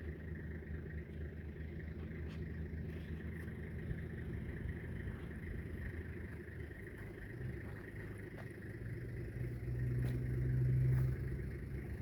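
A motor engine running with a steady low rumble, growing louder for a second or so about ten seconds in. A few faint short clicks sound above it.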